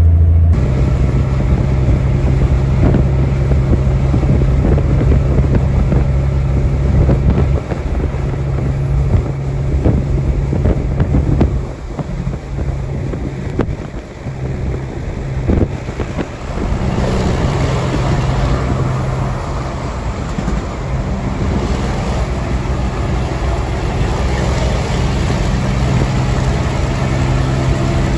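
Semi truck running, heard from inside the cab: a steady low engine drone with road noise, turning uneven and dipping for a few seconds near the middle.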